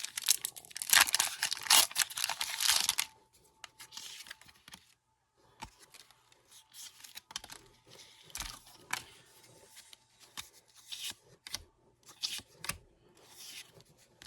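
A foil Pokémon booster pack being torn open, with loud tearing and crinkling for about the first three seconds. Then quieter scattered rustles and light ticks as the cards are handled.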